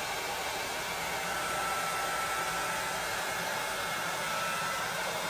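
Electric heat gun running steadily, blowing hot air over wet acrylic paint, with a faint steady whine that comes in about a second in.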